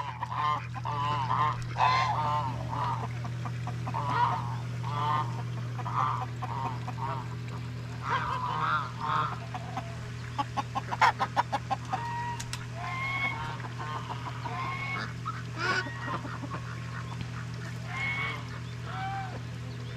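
Geese honking over and over in short calls, with a quick rattling run of notes about halfway through.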